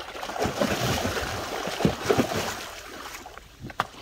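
Water splashing and sloshing as a wet cast net is hauled hand over hand out of a pond at the side of a wooden boat, with a sharp knock near the end.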